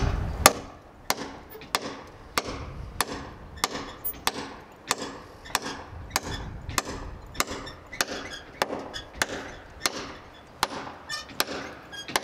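Hammer driving long 40d nails through a double LVL beam into a wooden post, in a steady rhythm of sharp blows, about three every two seconds.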